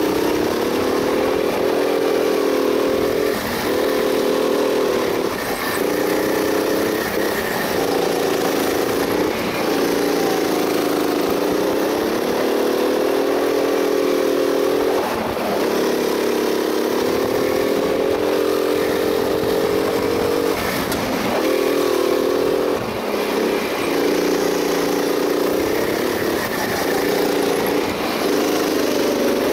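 Go-kart engine running hard, heard from the driver's seat. Its pitch wavers and dips briefly about ten times, picking up again each time, as the kart is driven through a run of tight turns.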